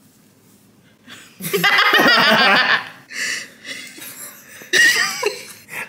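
People laughing: a long, loud laugh starting about a second and a half in, then shorter chuckles near the end.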